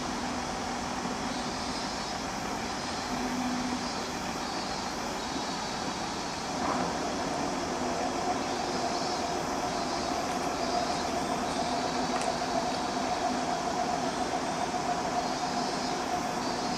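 Mercedes-Benz Unimog road-rail shunting vehicle running slowly along the track, towing a withdrawn commuter train: a steady engine and rolling noise, with a steady whine that comes in about seven seconds in and continues.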